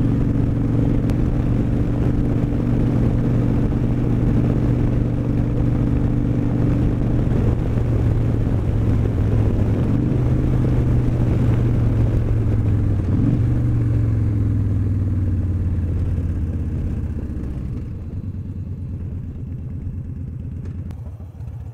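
Victory Vegas motorcycle's V-twin engine running at road speed, with wind rushing past. The engine note dips briefly a little past halfway, then falls and grows quieter over the last few seconds as the bike slows.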